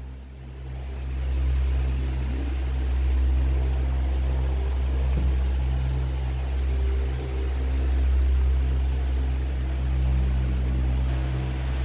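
A motor running: a steady low hum that swells over the first second and a half, then holds.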